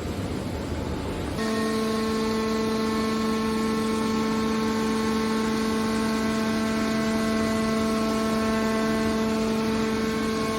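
Machinery noise, joined about a second and a half in by a steady pitched machine hum that holds without change.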